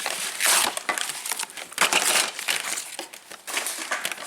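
Plastic packaging crinkling and crumpling in irregular bursts as a toy shopping basket is unwrapped.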